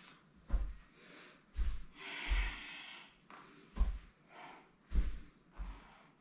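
A person rolling up and down on her spine on a yoga mat: a series of dull, irregular thuds as her back and feet meet the mat, with audible breaths in between.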